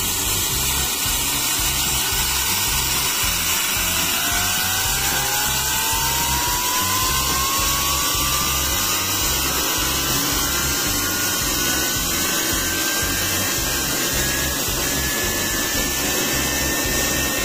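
Small homemade steam turbine running on live steam: a loud, steady steam hiss with a thin whine that climbs slowly in pitch as the turbine spins up.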